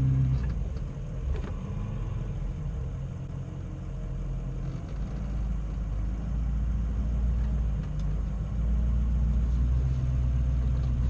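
Ford F-250 pickup's engine running steadily at low speed as the truck drives slowly onto an off-road trail, a low hum with a few faint clicks.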